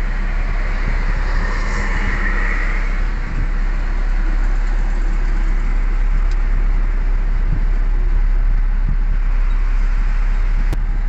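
2004 BMW X5 being driven on a test drive after a fresh transmission fluid and filter change, heard from inside the cabin: a steady low engine and road rumble, with a brief hiss about two seconds in.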